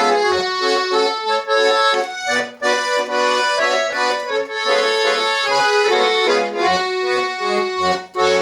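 Solo accordion playing a folk-schlager tune: a melody over pumped bass notes and chords.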